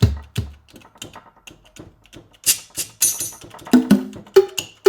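Linn LM-1 drum machine playing its sampled drum sounds one hit after another: deep drum thumps at the start, hissy cymbal-like hits in the middle, and pitched drum hits near the end.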